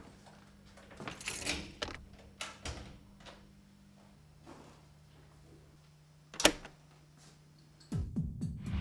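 Film soundtrack: a low, steady droning music tone under scattered soft knocks, with one sharp knock about six and a half seconds in. Near the end, louder music swells in with a heavy thump.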